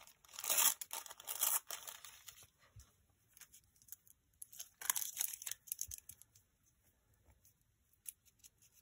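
Paper crinkling and tearing in a few short bursts, near the start, about a second in and again about five seconds in, with faint handling of paper scraps between.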